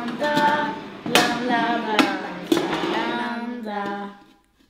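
Short music passage: a held, melodic tune with a few sharp percussive hits, fading out near the end.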